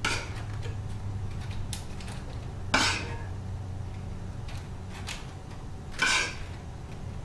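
Metal spoon scooping black beans from a saucepan, scraping and clinking against the pan, with three sharp knocks a few seconds apart.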